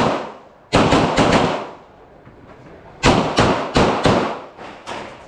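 Handgun shots fired in rapid strings: about four shots in quick succession, a short pause, then about six more.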